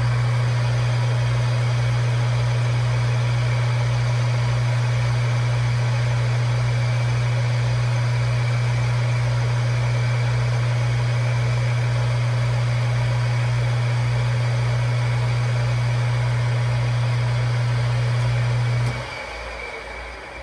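Metal lathe running steadily at about 400 RPM while a facing bit cleans up the cut-off muzzle end of a rifle barrel: a loud, even hum with a hissing whir over it. It cuts off about 19 seconds in, leaving a much fainter hiss.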